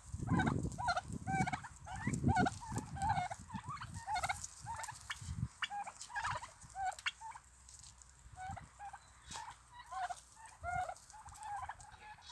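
A flock of domestic turkeys calling: many short, high calls from several birds overlapping, with a low rumble in the first couple of seconds.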